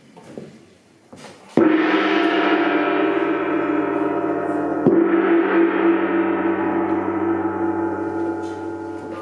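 Large hanging gong struck twice, about a second and a half in and again near five seconds, each strike ringing on as a long sound of many overlapping tones that slowly fades.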